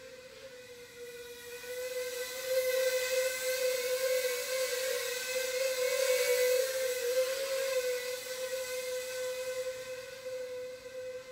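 Tiny micro-quad (whoop) motors and propellers whining at a steady pitch with a hiss. The sound grows louder about two seconds in, peaks in the middle and then fades, as the small wing flies close and away again.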